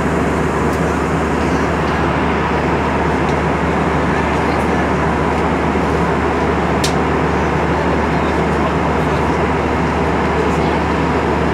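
Steady roar of an airliner's cabin noise in cruise flight: engine and airflow noise heard inside the cabin, even and unbroken.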